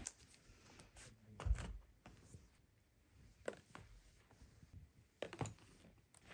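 A few soft, sparse knocks and rustles of things being handled and packed into a suitcase: a muffled thump about a second and a half in, a click a couple of seconds later, and two quick clicks near the end, with quiet room tone between.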